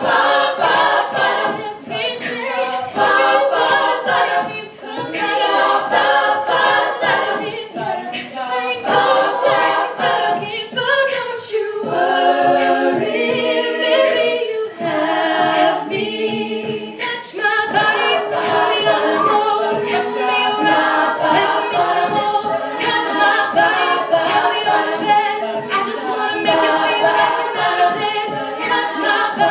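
All-female a cappella group singing in close harmony, with vocal percussion keeping a steady beat. Around the middle the backing settles into a few sustained chords before the rhythmic part returns.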